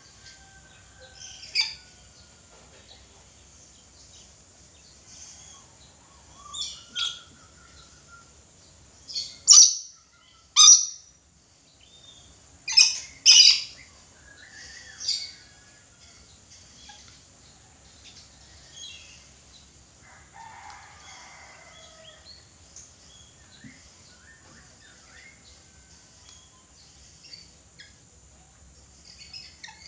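Red lory calling: about seven short, loud, shrill shrieks in the first half, a couple of them paired close together, then only faint scattered chirps.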